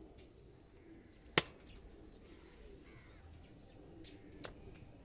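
Birds chirping in quick short high chirps, over and over. A single sharp click about a second and a half in, and a fainter one near the end.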